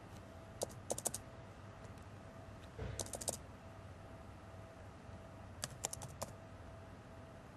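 Typing on a computer keyboard: three short bursts of a few keystrokes each, about two to three seconds apart.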